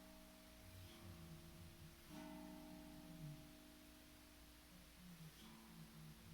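Steel tank drum (tongue drum) played softly: about four single notes struck a second or more apart, each ringing on and overlapping the next.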